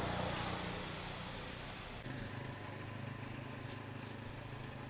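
Motorboat engine running steadily with a low hum over a hiss of water and wind; its pitch steps down slightly about two seconds in.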